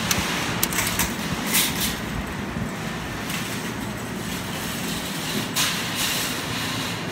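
Steady low machine hum with a few sharp clicks and clatters, several in the first two seconds and a couple more near the end.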